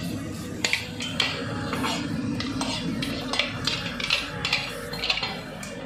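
Steel ladle clinking and scraping against metal cookware while stirring, a string of short sharp clicks.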